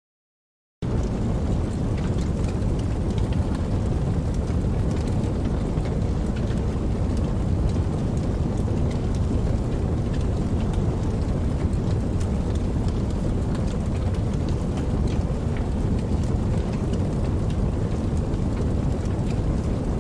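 Crackling campfire over a rushing, babbling creek: a steady low rush of water with scattered sharp pops and crackles from the fire. The sound cuts in abruptly about a second in, after silence.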